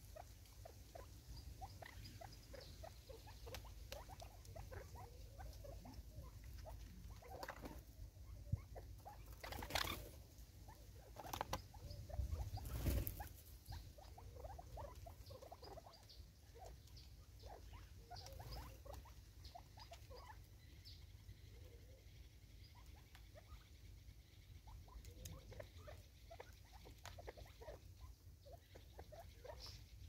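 Faint, rapid tapping and pattering of Natal spurfowl and francolins pecking seed from a plastic feeder on a wooden stump, with a few louder knocks and a short scuffle around the middle.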